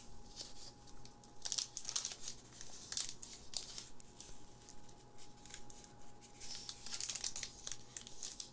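Foil Pokémon booster pack crinkling and crackling in irregular bursts as fingers pick and pull at its crimped top seal, trying to tear it open. The seal is difficult to get open.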